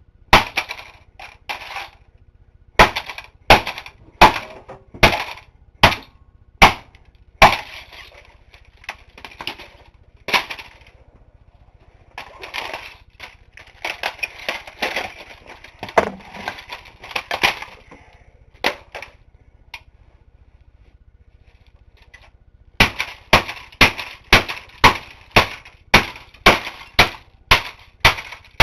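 Hammer blows smashing a laptop's plastic case and keyboard, each a sharp crack. In the middle the blows give way to a stretch of crunching and rattling of broken pieces, and near the end come in a fast run of about two blows a second.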